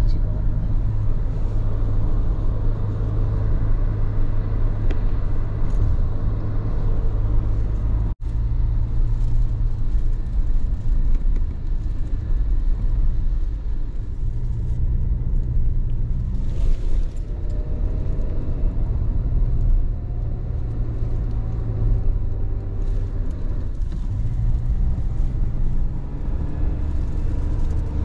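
Car driving, heard from inside the cabin: a steady low engine and road rumble that drops out for an instant about eight seconds in.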